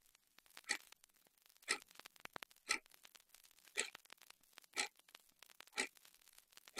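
Clock ticking steadily, about once a second, each tick sharp and bright, with fainter small clicks between the ticks.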